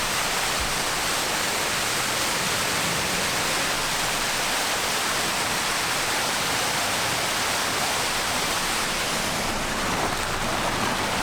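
Water pouring over a 30-foot waterfall: a steady, even rush of falling water with no breaks.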